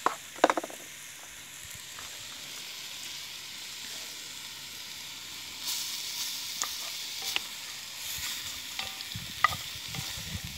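Partridge and potato stew sizzling in a cast iron pot over hot coals: a steady hiss that grows louder about halfway through. A few sharp knocks sound in the first second, and scattered clicks come later.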